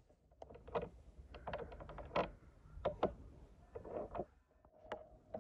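Metal spoon scooping granulated sugar from a glass jar and sprinkling it into an enamel bowl of ground feijoa: a run of irregular light clicks and taps of spoon on jar and bowl, with the soft hiss of falling sugar.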